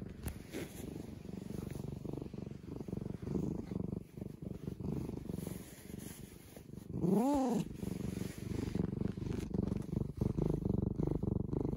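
A tabby cat purring steadily close to the microphone. About seven seconds in it gives one short meow that rises and falls in pitch.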